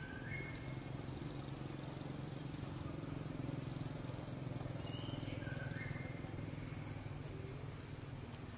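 Outdoor ambience: a low steady rumble with a thin high steady tone over it, and a bird's short whistled phrase of a few stepped notes about five seconds in.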